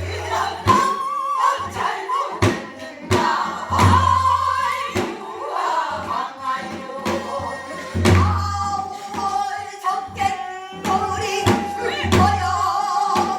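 Namdo sori, Korean southern folk singing, with a wavering, ornamented vocal line over frequent percussion strokes and deep thumps recurring about every four seconds.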